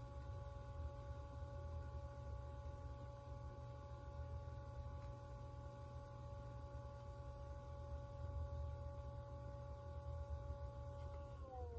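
Electric potter's wheel running: a steady motor whine over a low rumble, dropping a little in pitch near the end.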